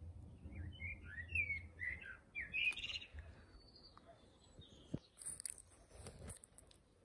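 A bird singing a quick run of short chirps for about two seconds. About five seconds in there is scratchy rubbing and knocking on the microphone as a cat presses its face against the camera.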